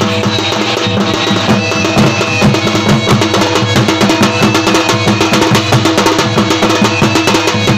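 Traditional Odia folk music for Danda Nacha: drums playing a quick, steady rhythm under a sustained melody.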